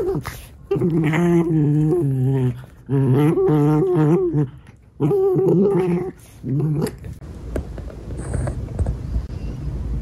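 Two Shiba Inu dogs play-growling while they wrestle: four long, wavering growls over the first seven seconds. After that the growling stops and only soft rustling on the bedding remains.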